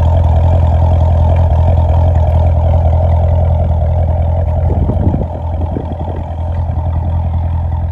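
Exhaust of a 2017 Chevrolet Corvette Z06's supercharged 6.2-litre V8 idling through its quad tips, a loud, steady low drone that eases slightly about five seconds in.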